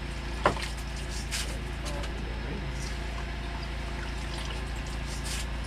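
Steady low mechanical hum, with a sharp click about half a second in and light, scattered trickling and splashing of water at an open fishing hole in the ice.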